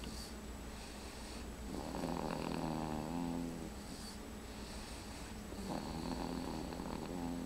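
A three-month-old snoring in sleep. There are two drawn-out pitched snores, each about a second and a half long, with breathy hissing exhales between them.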